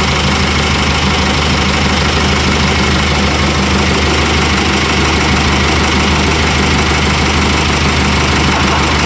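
Rebuilt 2.8-litre VM Motori four-cylinder common-rail diesel, newly swapped in, idling steadily.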